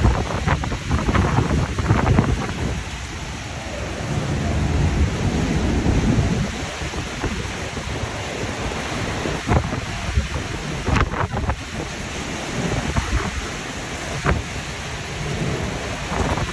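Hurricane winds blowing hard and buffeting the microphone, rising and falling in gusts, with driving rain and a few sharp knocks.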